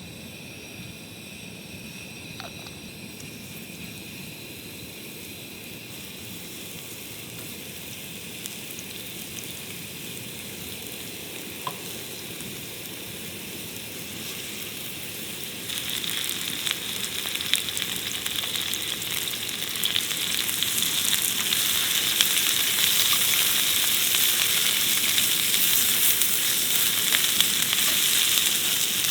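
Food sizzling as it fries in a hot pan, the sizzle growing steadily louder, with a jump about halfway through and another rise a few seconds later.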